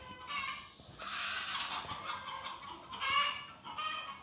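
Chickens clucking, a run of short, rough calls one after another.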